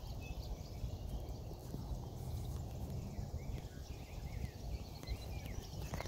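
Wild birds chirping faintly in short rising and falling calls over a louder, uneven low rumble.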